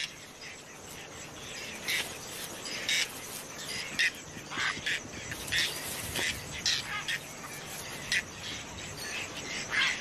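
Whiskered terns calling: short high calls every second or so over a faint steady hiss.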